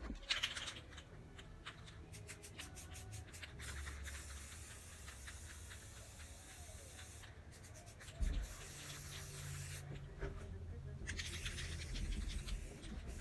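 Aerosol spray paint can shaken so its mixing ball rattles in quick clicks, then sprayed in three long hissing passes, laying down a second coat of paint. A dull thump comes partway through.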